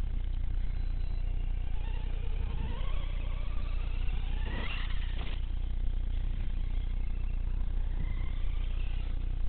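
Brushless electric motor of a 1/6-scale Redcat Shredder RC truggy on a 4S LiPo whining as it accelerates and lets off. The pitch rises and falls, loudest about halfway through, over a steady low rumble.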